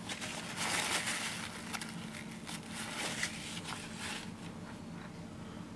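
Faint rustling and crinkling handling noises from fingers working a small oil-filled RC shock body, loudest about a second in and dying away after about four seconds.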